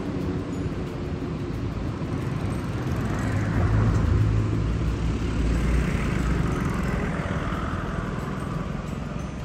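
Car driving on a road, a steady low engine and tyre rumble that swells a few seconds in and then eases off.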